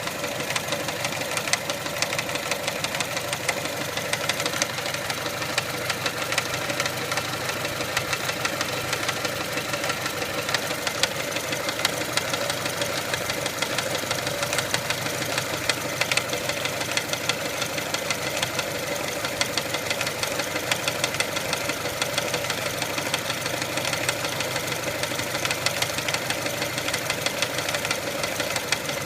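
Mitsubishi 4G93 four-cylinder engine in a 1999 Pajero iO, running steadily at idle with a rapid, even knocking throughout. The owner is unsure of the cause but suspects the crankshaft pulley, which wobbles noticeably.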